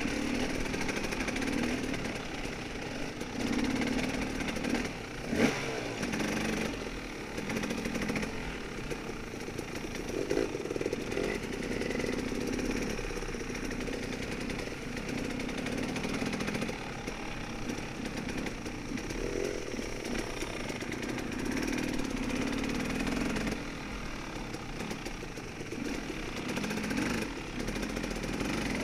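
Off-road motorcycle engine running on a woods trail, its revs rising and falling with the throttle. A sharp knock about five seconds in.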